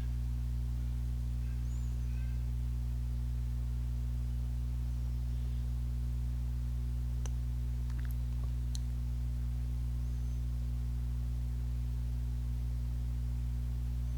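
Steady low droning background music, unchanging throughout, with a few faint clicks around the middle.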